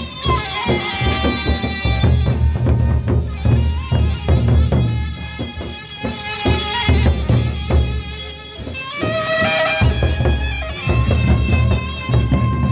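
Sasak gendang beleq ensemble playing on the march: large barrel drums beating out a driving rhythm with clashing hand cymbals, a pitched melody line above them. The drumming eases twice and comes back in.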